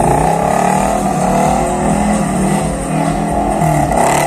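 Small pickup truck's engine revving hard while drifting, its pitch rising and falling repeatedly.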